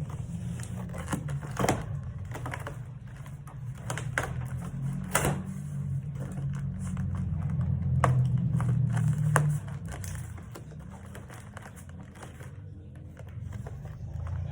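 Box and packaging being handled and unpacked: scattered clicks, taps and crinkles over a steady low hum.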